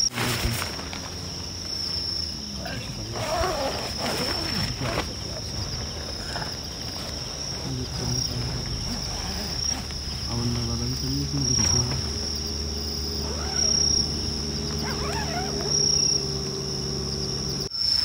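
Crickets trilling steadily in the night forest, with faint voices and a low steady drone underneath from about halfway through.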